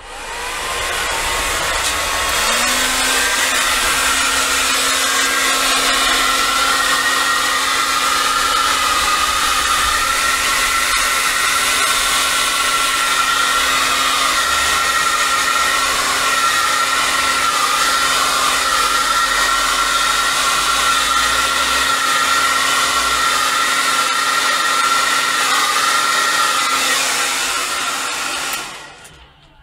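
Handheld heat gun running steadily, blowing hot air over a wet epoxy-resin pour. It comes up to speed at the start with a steady hum underneath the rush of air, and switches off shortly before the end.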